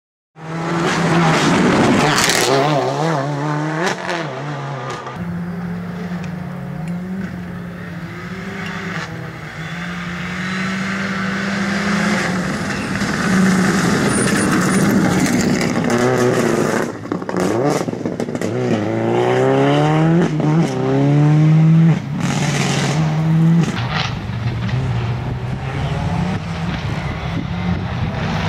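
Subaru Impreza rally car's flat-four engine driven hard on a tarmac stage, the pitch climbing through the gears and dropping at each shift, with quick rising revs between about 16 and 22 seconds in.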